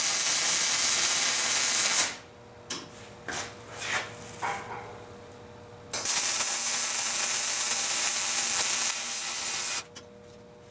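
Electric arc welding, crackling and hissing in two runs. The first stops about two seconds in; the second starts about six seconds in and stops near the end. Between the welds come a few light clicks and a faint steady hum.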